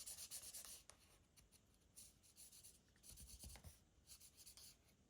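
Faint scratching of an alcohol marker nib rubbing on card stock in short colouring strokes, blending shading; the strokes are densest in the first second and then become sparse.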